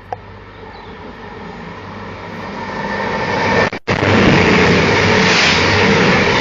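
A CrossCountry Class 221 Super Voyager diesel multiple unit approaching and passing at speed. The run of its diesel engines and wheels grows louder over the first few seconds, then stays loud as it goes by, with a momentary cutout just before the peak.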